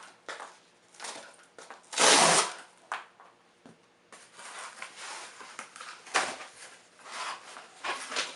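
Cardboard book mailer being torn open along its pull tab, with a loud rip about two seconds in. Rustling and light knocks follow as the box is handled.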